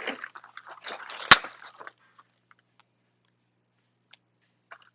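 Small plastic toys and their packaging being handled, with rustling for about two seconds and one sharp click a little over a second in, then only a few faint ticks.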